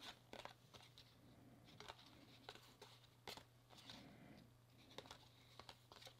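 Faint, irregular flicks and rustles of Topps baseball cards being thumbed one by one from one stack to another, over a low steady hum.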